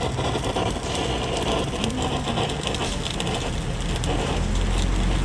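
Handheld kitchen blowtorch running steadily, its flame searing halved bone marrow in a pan, with a low rumble that comes up near the end.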